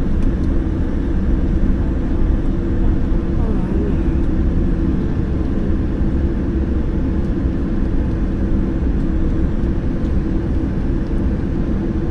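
Steady low rumble of an airliner's engines and airflow, heard from inside the passenger cabin as the plane taxis toward the runway.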